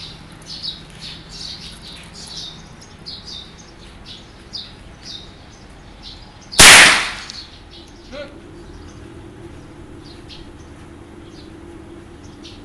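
A single rifle shot about halfway through, sharp and loud with a short echo trailing off. Small birds chirp throughout, and a faint steady hum comes in after the shot.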